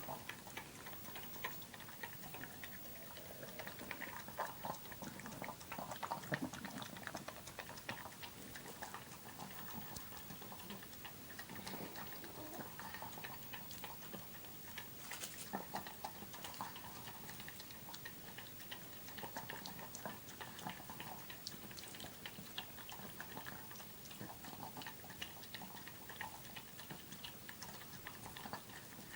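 A pug eating Weetabix: a long, irregular run of small clicks from its chewing and licking.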